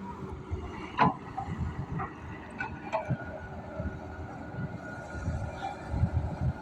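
Diesel excavator engine running, its rumble rising and falling under load, with a few sharp knocks about one, two and a half and three seconds in.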